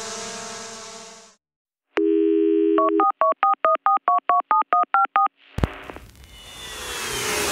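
A sustained music chord fades out, and after a short gap a telephone dial tone sounds for about a second. It is followed by a quick run of about a dozen touch-tone (DTMF) dialing beeps. A click follows, then a rising whoosh swells toward the end.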